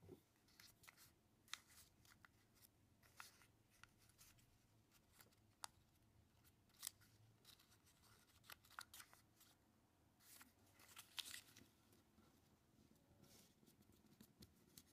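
Origami paper being folded and creased by hand, making faint, irregular crisp crackles and rustles.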